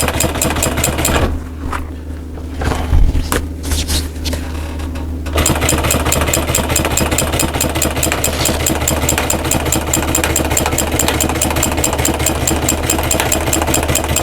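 Sewing machine running at speed, a rapid even run of stitches along a stitch line of a seat cover. It pauses about a second in, with a few clicks, then runs steadily again from about five seconds in until just before the end.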